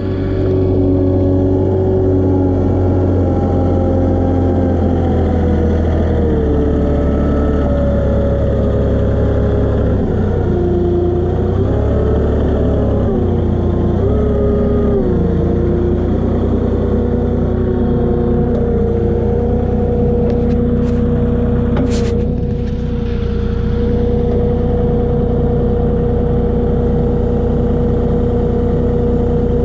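Palfinger truck-mounted forklift's engine running as it carries a bundle of lumber, its pitch rising and falling with the throttle during the first half, then holding steady. A short clatter about 22 seconds in.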